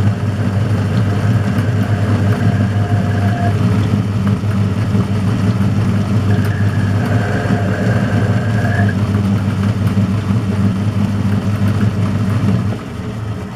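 Metal lathe running with a steady motor hum while a drill in the tailstock chuck is fed into the spinning work to put in a centre hole. A fainter, higher whine comes and goes twice. Near the end the lathe is switched off and runs down.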